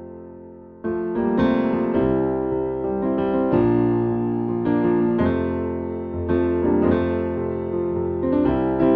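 Background piano music: a held chord fades away, then new chords are struck from about a second in and go on in an even, unhurried rhythm.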